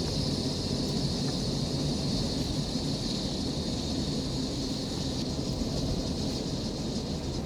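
Steady outdoor ambience: a low wind rumble on the microphone with a constant high-pitched hiss above it, no change throughout.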